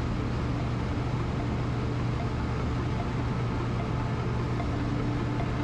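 Skyranger Nynja ultralight's engine running steadily during a landing approach, an even drone with a constant low hum and no change in pitch.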